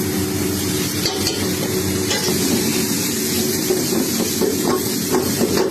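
Chicken and vegetables in satay sauce sizzling steadily as they are stir-fried in a hot pan, over a low steady hum.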